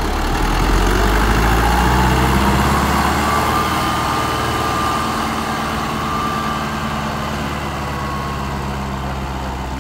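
A farm tractor's diesel engine runs steadily under load as it pulls a disc harrow through ploughed soil. It is loudest about two seconds in, then fades gradually as the tractor moves off.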